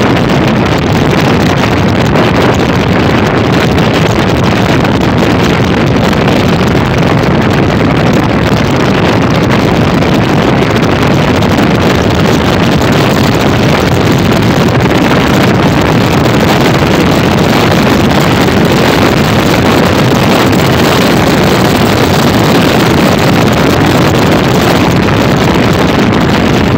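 Loud, steady wind rush on the microphone of a moving motorcycle, mixed with the motorcycle's running engine and road noise.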